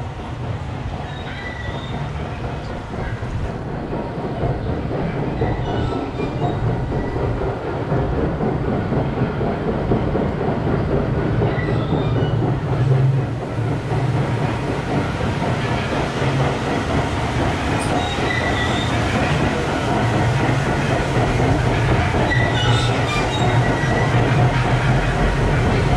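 Whitewater rafting ride's raft and ride machinery moving through the water channel: a steady low mechanical rumble with rushing water and short high squeaks every few seconds, growing slowly louder.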